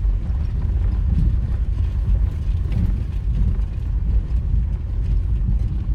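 Low rumble of a moving vehicle, with wind buffeting the microphone.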